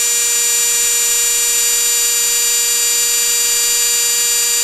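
Rebuildable brushed RC motor spinning unloaded at about 11 volts from a bench power supply, a steady whine. This is the high-speed stage of break-in that seats the brushes on the commutator, and the current draw is dropping as they bed in.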